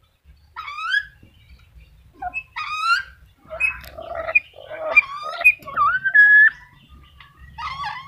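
Black-capped lory calling: loud squawks that glide up and down in pitch, then a quick run of chattering notes and a short held whistle about six seconds in, and one more squawk near the end.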